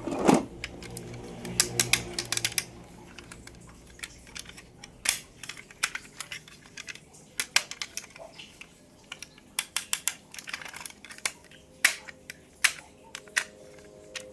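Irregular clicks and taps of hands handling toy cars and their plastic packaging, with a louder knock right at the start.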